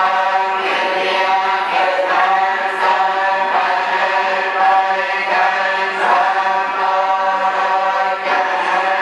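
Buddhist monks chanting a litany together, many voices on a near-monotone in short held phrases over a steady low drone.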